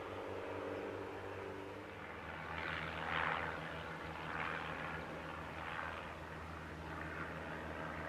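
Boeing 737-800's CFM56-7B turbofan engines running near idle as the airliner taxis slowly past, a steady low hum. A few brief swells of rushing noise come through between about three and six seconds in, the loudest about three seconds in.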